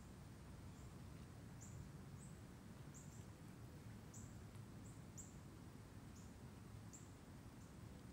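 Faint outdoor quiet with a low steady rumble, over which a small bird gives short high chirps at irregular intervals, about one or two a second.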